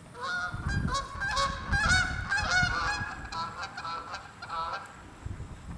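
Waterfowl calling: a rapid, overlapping series of short honking calls, densest in the first three seconds and thinning out before the end, over a low rumble.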